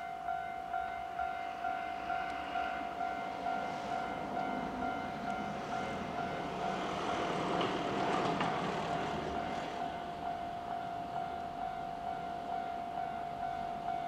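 Japanese railway level-crossing warning bell ringing in a rapid, even ding-ding-ding, a little over two strikes a second, while the crossing is closed for an approaching train. A passing vehicle's noise swells and fades under it around the middle.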